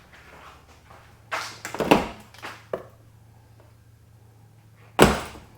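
A short run of rustling and knocking as things are handled, then one sharp knock about five seconds in, over a steady low hum.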